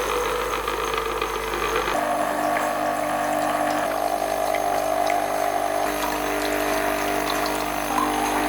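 De'Longhi Nescafé Dolce Gusto Melody 3 capsule coffee machine's vibratory pump running steadily, pushing water through with no capsule in to rinse the machine on its first use. The tone shifts about two seconds in.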